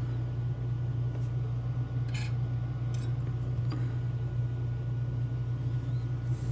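A steady low hum that drops away near the end, with a few faint small clicks from handling the lock's parts.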